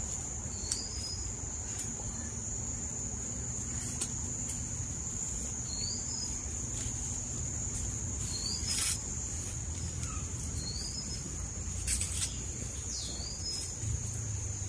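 Steady high-pitched drone of insects, with a bird's short chirp repeating about five times, a couple of seconds apart. A few brief rustles or clicks of handling.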